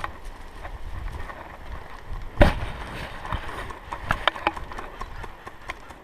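Rustling of clothing and gear with footsteps, picked up close by a camera worn on the body, with a sharp knock about two and a half seconds in and a quick run of short clicks a little over four seconds in.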